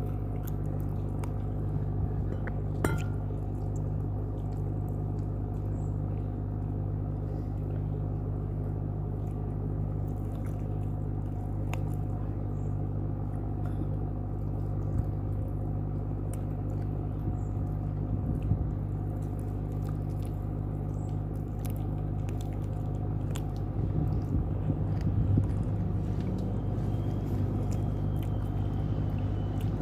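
Close-up chewing and biting sounds of someone eating spicy chicken feet, with scattered small crunches and clicks, over a steady low hum.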